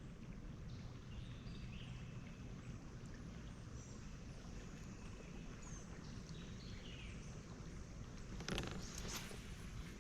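Quiet creek-side ambience: a low steady rumble with faint, short high chirps, then a brief rushing, splash-like noise about eight and a half seconds in.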